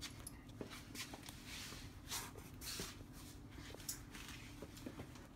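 Faint shuffling, clothing rustle and soft scuffs of a person getting down and settling onto their back on a concrete floor, with a few light knocks.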